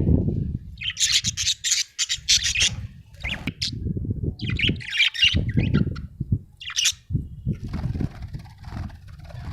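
Budgerigar chirping in several short bursts of rapid, high chirps, with a low rustling noise underneath between the bursts.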